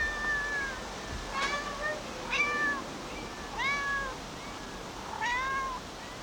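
Domestic cat meowing about five times, every second or so. Each meow rises and then falls in pitch.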